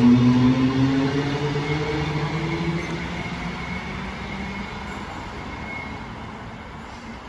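Queensland Rail electric suburban train moving off along the platform, its motors humming in several steady pitches that fade out over the first few seconds as it leaves. A faint high tone carries on for a few seconds after the hum is gone.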